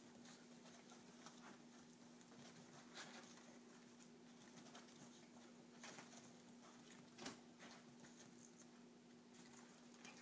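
Near silence with faint, scattered scratches and rustles of a small dog and a ferret scuffling on an upholstered love seat, the clearest a few sharp ticks about 3, 6 and 7 seconds in. A steady low hum runs underneath.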